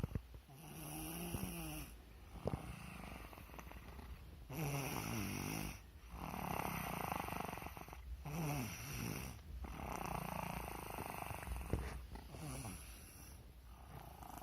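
Snoring in slow, regular breaths, one about every one and a half to two seconds. Several of the breaths carry a rattling, pitched buzz that bends in pitch.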